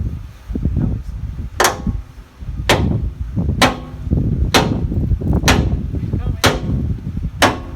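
A heavy hammer striking metal seven times, about once a second, each blow ringing briefly, over a low rumble.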